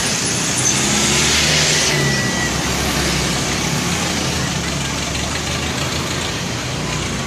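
Bus engine running steadily, with a loud hiss that cuts off sharply about two seconds in.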